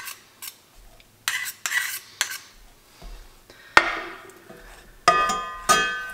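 A metal spoon scraping and clinking against a small metal cup as ghee is spooned out, with a sharp clink about four seconds in and two ringing metallic clinks near the end.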